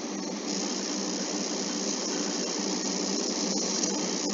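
Steady background noise between narration: an even hiss with no distinct events, turning brighter and louder about half a second in.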